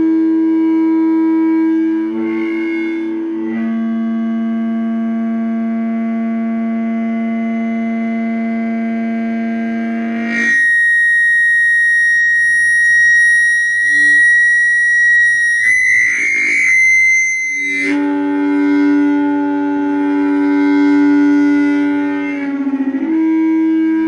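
Audio feedback from a stereo speaker: a sustained howl made of steady tones that shift pitch now and then, with a steady low hum beneath. About ten seconds in it jumps to a high, shrill squeal for roughly seven seconds, wavering near the end, then drops back to a low howl.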